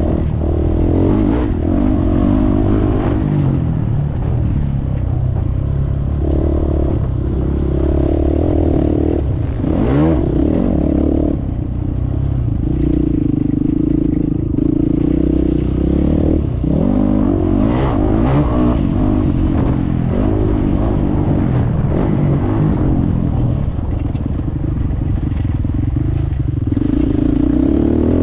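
450 cc motocross bike engine heard on board, with its revs rising and falling again and again as the rider accelerates and backs off. A few short knocks come through over it.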